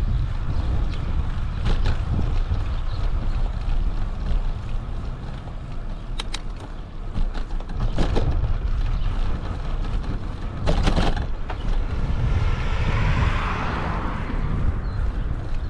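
Wind buffeting the microphone of a camera on a moving bicycle, with a steady low rumble from the tyres on the pavement. A few sharp knocks come as the bike rolls over pavement joints and crosswalk edges, around six, eight and eleven seconds in, and a hiss swells and fades near the end.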